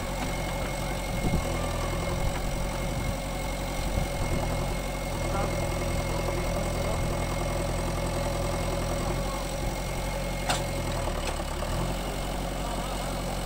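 JCB 3DX backhoe loader's diesel engine idling steadily, its note dipping briefly about eleven seconds in. A single sharp click about ten seconds in.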